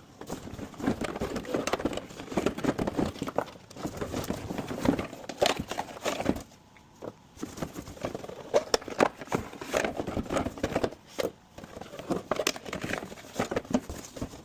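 Irregular clicking, knocking and clattering of hand tools and loose parts being handled during engine work, with a short lull about halfway through.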